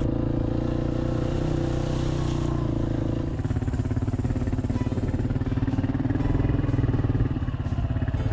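A vehicle engine running steadily under way, its note shifting slightly about three seconds in.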